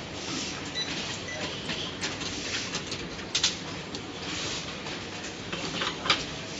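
Automatic rotary wire-soldering machine running: steady mechanical noise with irregular sharp clicks and clacks, the loudest about three and a half seconds in and again near the end.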